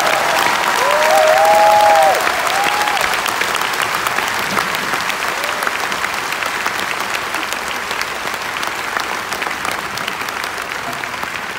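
Concert audience applauding and cheering after a song. A few long, gliding cheers stand out in the first three seconds, then the applause slowly dies down.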